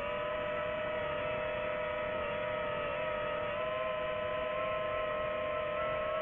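DJI FPV drone's motors and propellers whining at a steady pitch, heard from the drone's onboard microphone, holding a constant throttle in cruise.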